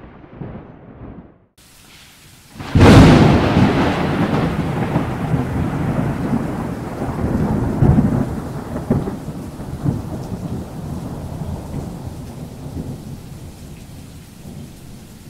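A thunderclap: a sudden loud crack about three seconds in, then a long rolling rumble that slowly fades away.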